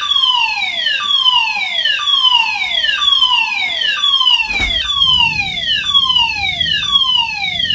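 Building fire alarm sounding: a loud electronic tone that sweeps downward over and over, about one sweep a second. There is a brief knock about halfway through.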